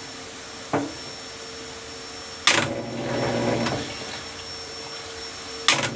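Drain pump of a Consul Facilite 10 kg washing machine humming, then suddenly kicking in with a louder running surge about two and a half seconds in that dies back, and kicking in again near the end. The pump is cutting in and out, which the owner takes for play in its rotor making it jam.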